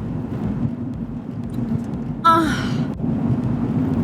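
A woman's short, drawn-out 'ahh' of pleasure after a sip of a cold drink, falling in pitch, about two seconds in, over the steady low rumble of a car cabin.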